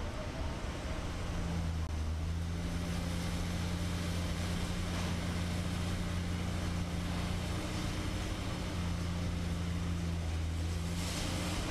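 Heavy diesel engine of earthmoving machinery running steadily at a constant low pitch, the hum firming up about a second in. A brief rush of noise comes near the end.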